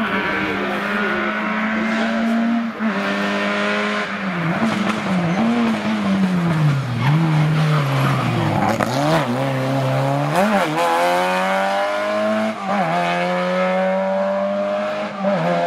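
Lancia Beta Montecarlo rally car engine under hard driving. The revs run steady, dip and wander as the car slows for a tight hairpin, then climb again on the way out, with a couple of quick gear changes near the end.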